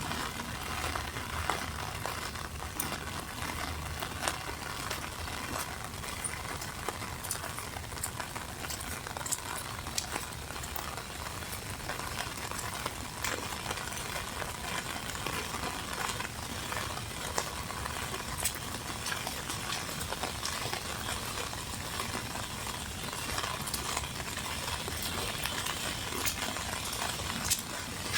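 Steady rain falling, an even hiss with many scattered sharp drop ticks.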